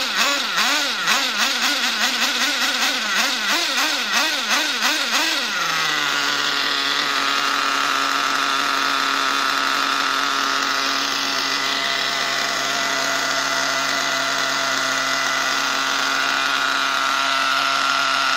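Small nitro (glow-fuel) engine of an RC truck, revved up and down about twice a second for the first five seconds, then dropping to a steady idle. The owner says it is running a little rich while still being broken in.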